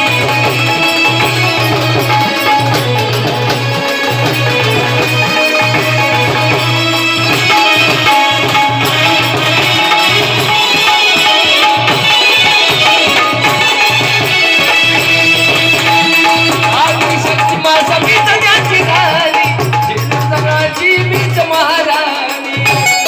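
Instrumental folk-style music with hand-drum rhythm and a keyboard melody, with a low note repeating in steady pulses and bending melodic runs near the end.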